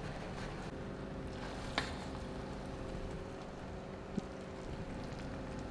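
Steady background hum with a few low steady tones, a sharp click a little under two seconds in and a faint tick about four seconds in.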